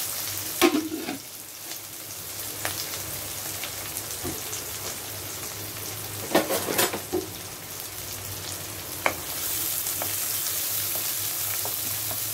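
Chopped onions frying in a little hot oil with mustard seeds in a nonstick kadai: a steady sizzle, with a few sharp clicks and knocks, the loudest cluster about six and a half seconds in. The sizzle grows louder near the end, and a wooden spatula stirs the onions.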